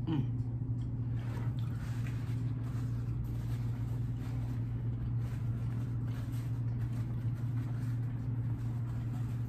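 A steady low hum throughout, with soft chewing and the rustle of a paper napkin as hands are wiped.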